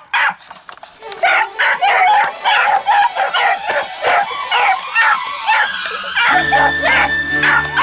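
Beagle puppy yipping and barking in quick, high-pitched bursts, two or three a second. Background music comes in near the end.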